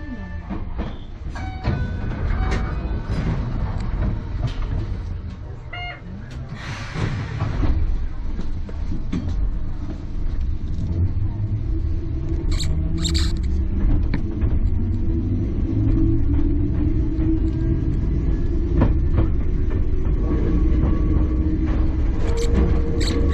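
Enoshima Electric Railway (Enoden) train running, heard from aboard: a low rumble of wheels on the rails with a steady motor hum. It grows louder about seven seconds in and then holds steady.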